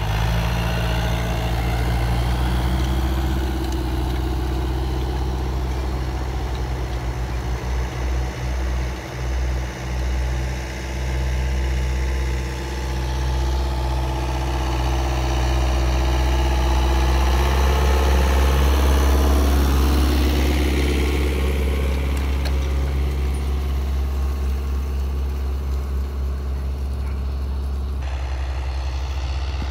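Fiat 640 tractors' diesel engines running steadily under load while pulling disc harrows over ploughed ground, with a swell in loudness and a slight drop in engine pitch about two-thirds of the way through.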